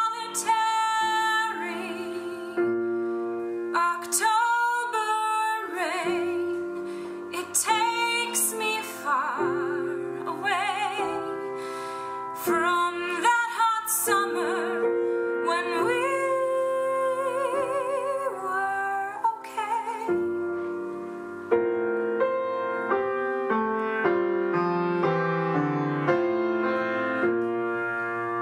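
A woman singing with vibrato over grand piano accompaniment; about two-thirds of the way through the voice stops and the piano plays on alone.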